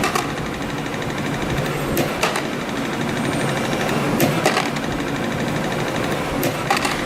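YHM CF-310 CNC compression-spring machine running steadily, coiling 0.8 mm wire into springs, with sharp clicks about every two seconds, one cluster per spring cycle.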